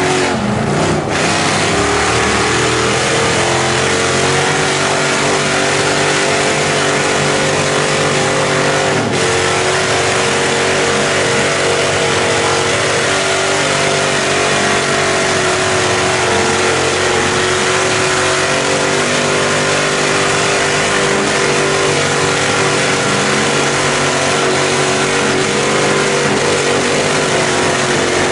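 Mega truck engine held at high revs through a long burnout, a steady unbroken note with a brief dip about a second in.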